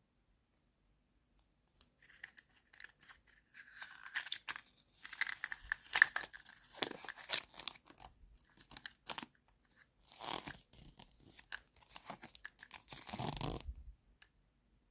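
Plastic toy packaging crinkling and tearing as it is handled and opened, with small sharp clicks, starting about two seconds in and stopping shortly before the end.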